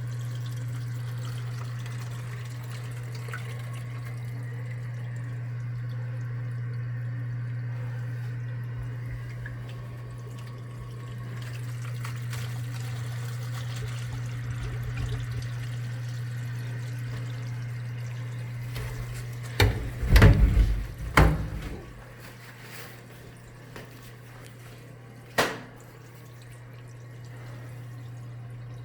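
Water trickling and dripping from a leaking sewage drain pipe in a bathroom ceiling, over a steady low hum in a small tiled room. About two-thirds of the way through comes a short loud burst of several sudden knocks, and a single sharp click a few seconds later.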